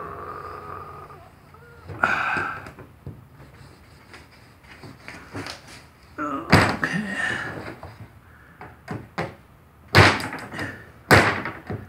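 A fid scraping and squeaking along metal came to spread its channel open, with several sharp knocks, the loudest two about ten and eleven seconds in.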